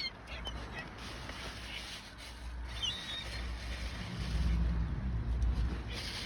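Seagulls giving a few short, high squealing calls, the clearest about three seconds in, over a steady low rumble that grows louder near the end.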